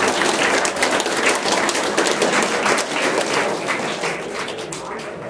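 An audience applauding, many hands clapping together, tapering off slightly near the end.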